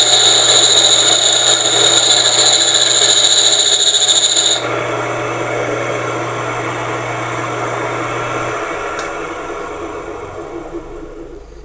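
Belt-driven electric motor turning an improvised lathe while a hand tool scrapes against the spinning metal cylinder with a steady high squeal. The tool is lifted about four and a half seconds in and the squeal stops suddenly. The motor runs on, its hum stops about three-quarters of the way through, and the sound fades as it slows.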